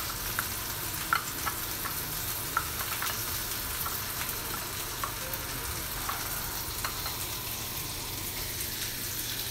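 Food frying in a pan on the stove: a steady sizzle with scattered small pops and crackles.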